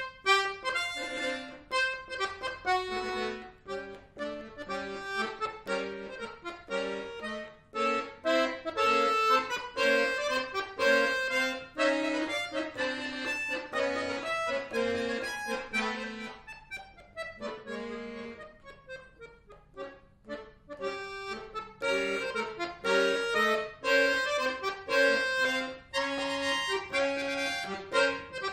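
Chromatic button accordion playing a solo piece of many quick, short notes, starting suddenly after a silence. The playing turns softer and sparser for a few seconds in the middle, then fills out again.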